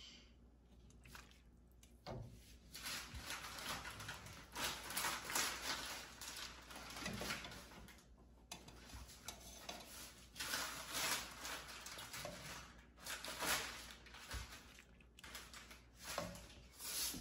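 A ladle scooping chicken and vegetable broth in a stainless steel stockpot to serve it into a bowl, the liquid splashing and sloshing in repeated bursts.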